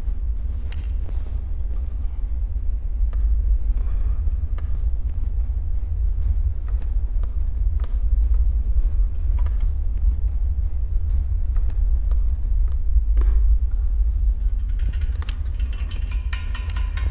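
A steady deep rumble, with faint scattered clicks over it; near the end a higher pitched tone with overtones comes in.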